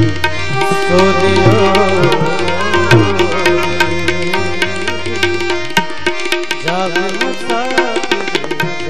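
Devotional bhajan music: hand drums keep a steady rhythm under a melodic line with gliding, ornamented notes over held tones. The low bass notes drop out about six seconds in.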